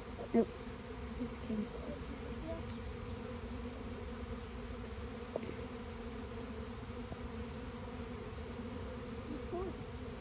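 A swarm of honeybees buzzing in flight as it moves into a bait hive: a steady, low hum of many wings.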